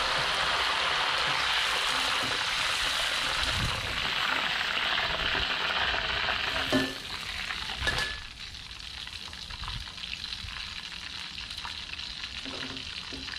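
Holy basil leaves deep-frying in hot oil in a metal pot, a loud steady sizzle. About seven seconds in, two knocks come as the leaves are scooped out with a wire strainer, and the frying drops to a quieter crackle.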